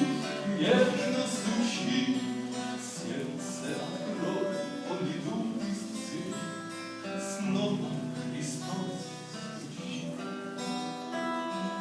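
Strummed acoustic guitar playing the instrumental close of a Russian gospel song, without singing, getting gradually quieter.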